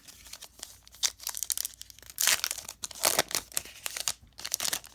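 Foil wrapper of a Pokémon booster pack crinkling and tearing open in irregular rustling bursts. The loudest bursts come a little past two seconds in.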